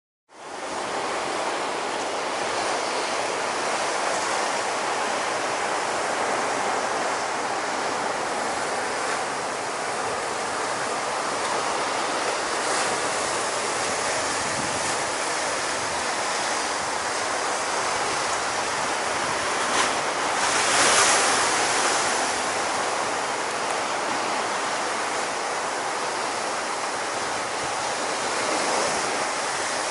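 Ocean surf: small waves breaking and washing in a steady rush, with some wind on the microphone. A louder surge comes about twenty seconds in.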